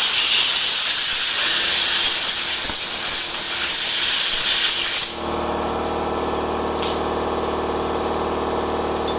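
Loud, steady hiss of a compressed-air blast, blowing drill chips out of the drilled padlock, cutting off about five seconds in. A steady motor hum follows.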